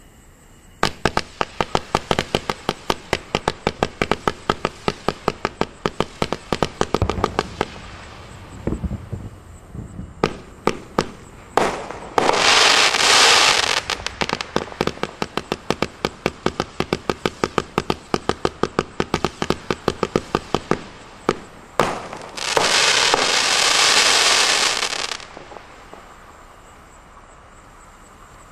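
Winda "Wishing Star" multi-shot fireworks cake firing: a rapid string of sharp shots, about three or four a second, for some twenty seconds. Two louder spells of dense hissing, each two to three seconds long, come about halfway through and near the end.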